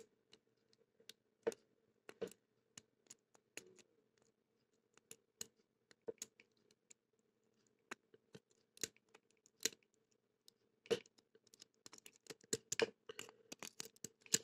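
Faint scattered clicks and scrapes of lock-picking tools working in a laminated padlock, sparse at first and coming thick and fast near the end.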